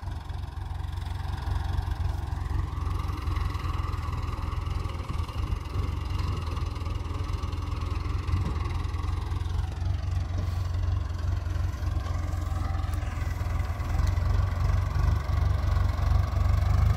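Farm tractor's diesel engine idling steadily, its note shifting slightly about ten seconds in.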